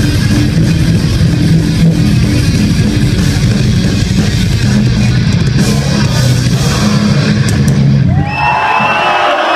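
Melodic death metal band playing live: heavy distorted electric guitars, bass and drums at full volume. About eight seconds in, the song ends and the audience breaks into cheers and shouts.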